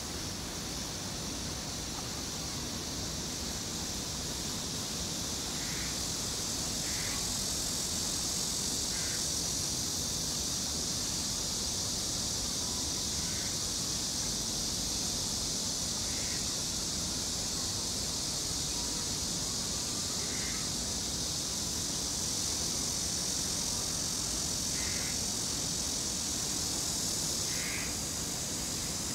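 Steady high-pitched insect drone in forest, with a bird giving about eight short calls spaced a few seconds apart.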